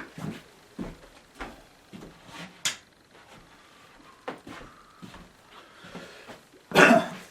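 Handling noises from lamps being moved and set up by hand: scattered light knocks and clicks, then a louder clatter near the end.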